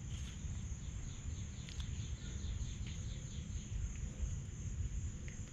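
Outdoor insect and bird ambience. A steady high insect buzz runs throughout. A run of quick chirps, about four a second, carries on for the first few seconds and then fades. A low rumble lies underneath.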